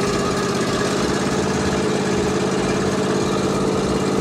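John Deere Z335E zero-turn mower's V-twin air-cooled engine idling steadily, just started warm without choke.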